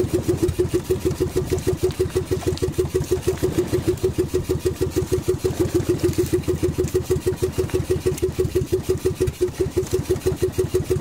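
Small inboard engine of a motorized outrigger boat (bangka) running steadily, with an even, rapid chug of about seven beats a second.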